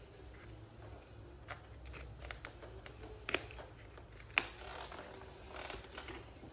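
Thread snips cutting sewing threads at the needle of a double-needle sewing machine: a scatter of light clicks with two sharper snips about three and four and a half seconds in, over a low steady hum.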